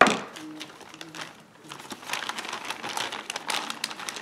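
A sharp metal clank with brief ringing as a part is set down among the tools on the workbench, then a plastic zip-top bag crinkling and rustling as it is handled.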